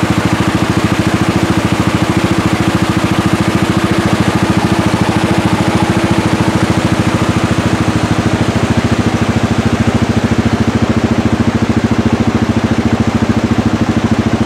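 A small engine idling steadily with a fast, even pulse, over the rush of rain-swollen runoff streams pouring over rocks and leaves.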